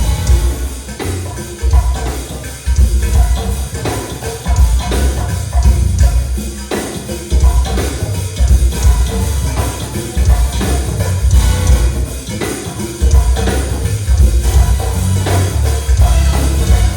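Loud band music driven by a drum kit, with a heavy bass line pulsing in a steady repeating pattern.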